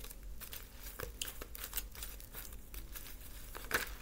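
Hands shuffling a deck of cards: irregular soft slaps and rustles of card edges, with one louder snap near the end.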